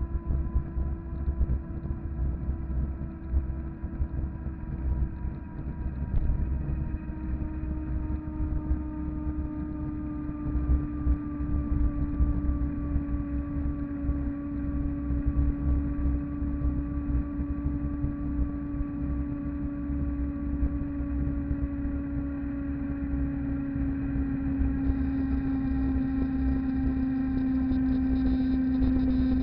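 Electric fat bike (250 W, 48 V) riding along asphalt: a steady whine from the drive and tyres, its pitch drifting slowly lower, over a constant low wind rumble on the microphone.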